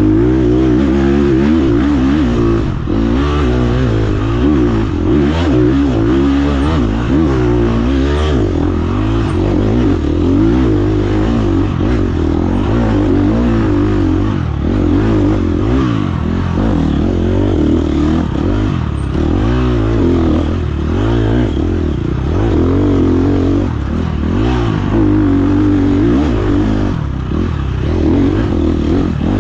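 Dirt bike engine heard from an onboard camera, revving up and down without a break as the throttle opens and closes, with occasional knocks and rattles from the bike over rough ground.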